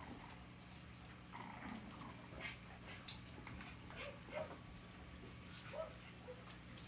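Faint, scattered whimpers and squeaks from Bugg puppies (Boston terrier and pug cross) at play. A few light clicks come in between, the sharpest about three seconds in, over a steady low hum.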